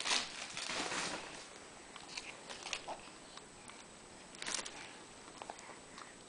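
Soft rustling that fades over the first second, then scattered light taps and one brief rustle about four and a half seconds in, from a baby handling and mouthing a cardboard board book.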